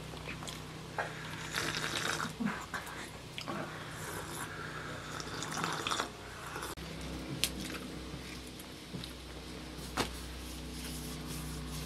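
Hot tea sipped and slurped from a glass, with a few sharp clicks and a steady low hum underneath.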